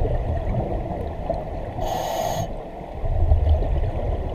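Underwater sound of a diver breathing on a 1950s Mistral double-hose regulator: a short hiss of air through the regulator about two seconds in and low bubbling rumbles from exhaled air, over the steady low rush of the river.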